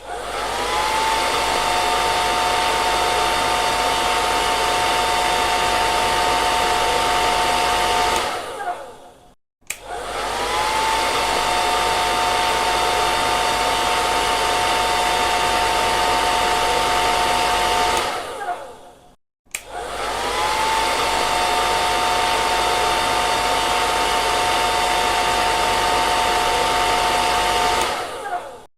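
Hair dryer switched on, its motor whine rising as it spins up, then blowing steadily with a hiss and a steady two-note whine for about eight seconds before it is switched off and winds down. This happens three times, each separated by a moment of silence.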